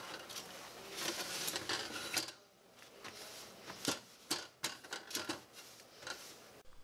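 A cloth scrubbing the metal drip pan and coil burner of an electric stove, a rubbing, scraping noise in the first half, then a run of light clicks and knocks as the metal parts are handled.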